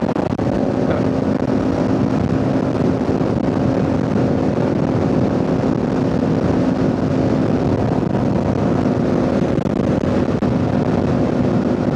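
Kawasaki Ninja 500's parallel-twin engine running at a steady cruising speed, holding one pitch, under heavy wind rush on the microphone.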